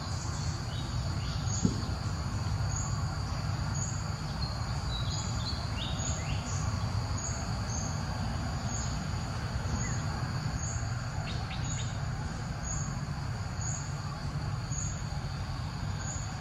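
Outdoor ambience: a steady high insect drone, with a short high chirp repeating about once a second, over a continuous low rumble.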